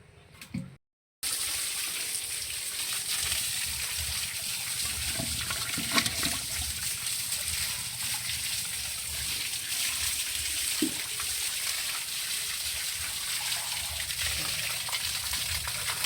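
Water splashing and trickling in a steady hiss with small scattered clicks. It starts abruptly after a moment of silence about a second in.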